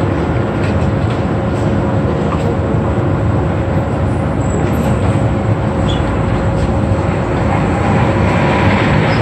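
Steady, loud roar of commercial gas range burners firing under the pans, with a thin steady hum running through it. A few light clicks of tongs against the metal pans sound over it.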